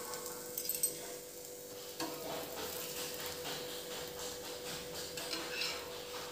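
A dosa sizzling on a hot flat griddle (tawa) while a metal spatula scrapes under it and folds it over, with a few light scrapes and taps under a second in and a sharper one about two seconds in.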